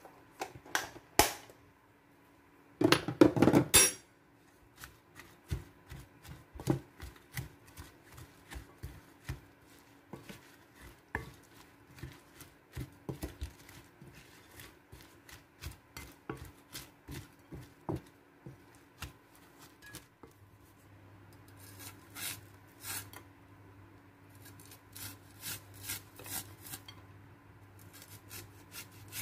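Wooden spatula knocking and scraping against a ceramic plate while mixing shredded cabbage with egg and flour: irregular taps about one or two a second, with a louder stretch of scraping about three seconds in. A faint steady hum lies underneath.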